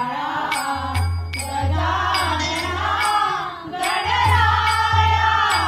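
Group of women singing a devotional bhajan together, with a barrel-shaped pakhawaj drum keeping a steady low beat and bright cymbal-like strokes about twice a second.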